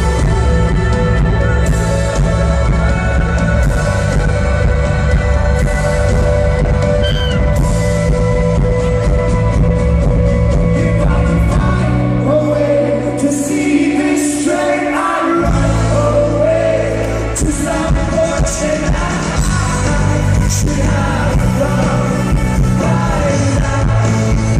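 Live rock band playing with a lead vocal. About halfway through, the bass drops out for a few seconds and then comes back in.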